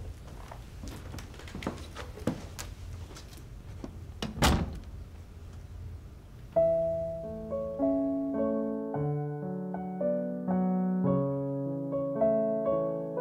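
A few light knocks, then a wooden door shutting with a thunk about four and a half seconds in. About halfway through, gentle piano music begins and carries on.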